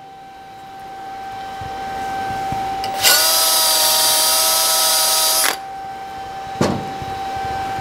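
Cordless drill spinning a wire wheel brush against a steel plate to brush slag off a fresh weld bead. It runs at a steady pitch for about two and a half seconds, starting and stopping abruptly.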